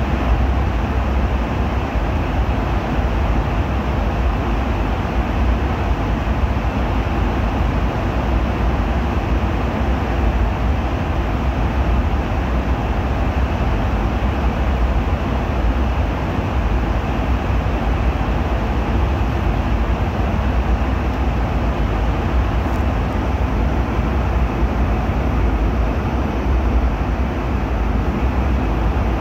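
Airliner cabin noise in flight: a steady, even rush of engine and airflow noise with a heavy low rumble.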